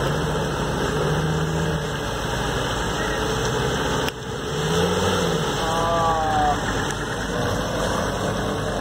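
Series Land Rover engine running at low revs as it wades slowly through a muddy puddle, the engine note swelling briefly twice.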